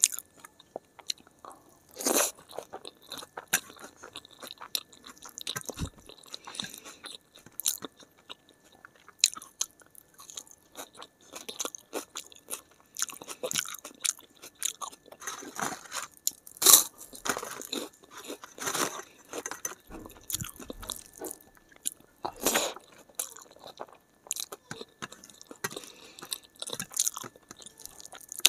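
Close-miked chewing of a mouthful of rice mixed with crumbled papad, with irregular crisp crunches, a few much louder than the rest.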